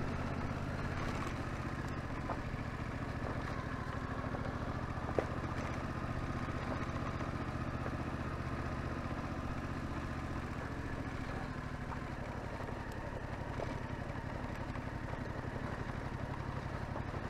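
Yamaha Tracer 7's 689 cc parallel-twin engine running at steady revs while the motorcycle is ridden along, heard from the rider's position, with a single sharp click about five seconds in.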